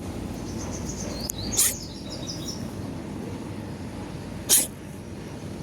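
Cat coughing: two short, sharp bursts about three seconds apart.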